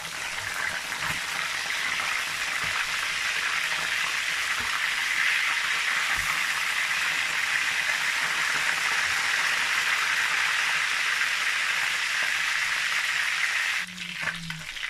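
Whole fish frying in hot oil in a pan, a loud steady sizzle just after the fish has been turned over; the sizzle drops off suddenly near the end.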